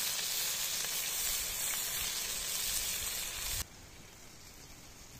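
Ćevapi sizzling and frying in a stainless steel pan over a gas canister burner. The sizzle cuts off suddenly about three and a half seconds in, leaving a much quieter, faint hiss.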